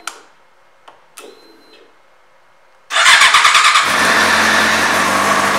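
Two faint clicks, each with a short whir, then about three seconds in the 2008 Yamaha YZF-R6S's 600 cc inline-four cranks on the electric starter, catches, and settles into a steady idle.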